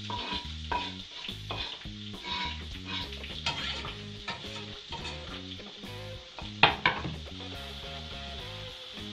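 Chopped onion and garlic sizzling in melted butter in a frying pan as they are tipped in and stirred, with a spatula scraping the pan. A sharp knock is heard about two-thirds of the way through.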